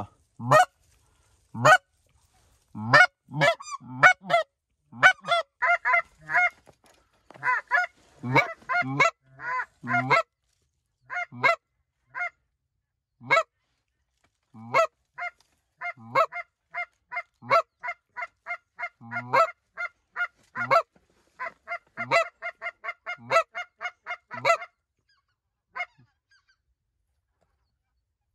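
Greater white-fronted geese (specks) calling: short, high yelping honks, at first singly or in pairs and later in quick runs of about four to five notes a second, which stop a few seconds before the end.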